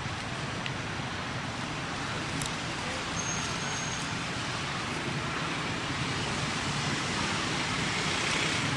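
Steady outdoor background noise: an even hiss with a low rumble underneath, at a constant level.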